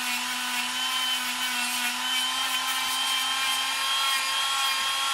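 Dremel rotary tool running steadily with a small wire wheel, brushing the glue and silicone coating off the end of an LED strip: an even motor whine over a scratchy hiss.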